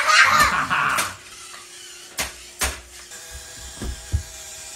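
Little Tikes Tire Twister remote-control toy car's small electric motor whirring with a steady gear whine. Several sharp plastic knocks come as the car and its tire tumble and bump on the carpet.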